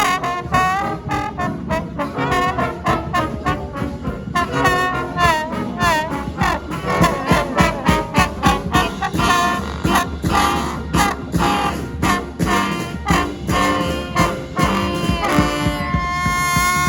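Brass band playing an up-tempo tune: trombones and trumpets over a steady, driving drum beat, with a long held note near the end.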